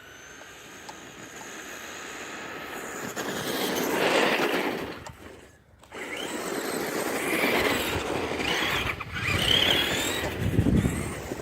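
Electric RC car on a speed run, its motor whine rising along with tyre noise. It grows louder up to about four seconds in, falls away almost to nothing just before six seconds, then runs loud again.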